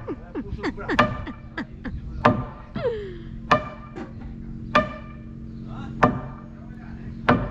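Sledgehammer driving a long wooden beam into place against a wooden hull: six sharp knocks at an even pace of about one blow every second and a quarter, each with a brief ring.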